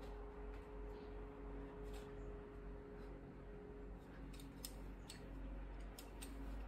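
Faint low rumble with a steady hum for the first few seconds, then a scatter of light clicks from about four seconds in.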